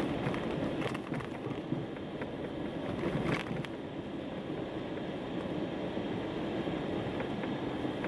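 Car driving slowly over a snow-covered road, heard from inside the cabin: a steady rumble of tyres and engine, with a few brief knocks, the strongest about three and a half seconds in.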